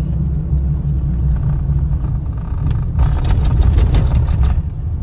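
Cabin noise of a taxi on the move: a steady low rumble of engine and tyres on the road. About three seconds in, a louder rush of noise comes in for a second and a half, then falls back.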